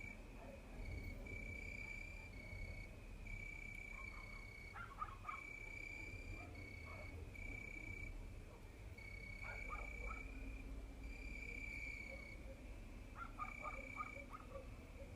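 Crickets singing: a steady run of high chirps, each about half a second to a second long, one following another at a slightly changing pitch. Short bursts of lower clicking calls break in three times, about five, ten and fourteen seconds in.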